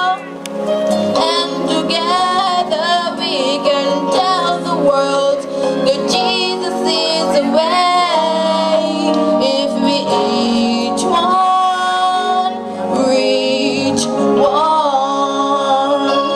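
Gospel song sung by a female soloist with vibrato over a sustained instrumental accompaniment.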